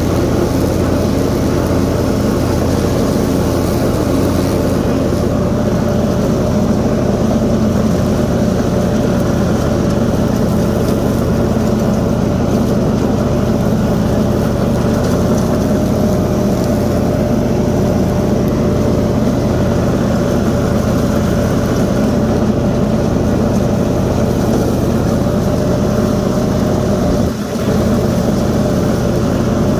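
Kohler 22-horsepower engine of a Toro TimeCutter SS4235 zero-turn mower running steadily with its blades engaged, cutting thick tall grass. The sound dips briefly near the end.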